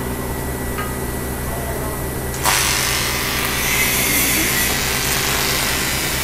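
A steady low electrical hum, then about two and a half seconds in a TIG welding arc strikes on an aluminium alloy rim and keeps going with a loud, steady hiss as the crack is welded.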